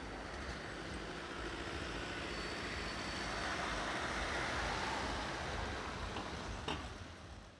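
Street traffic noise: a Siemens ULF low-floor tram moving away round a curve while a car passes close by, the noise swelling in the middle and dying down near the end, with one short knock just before it fades.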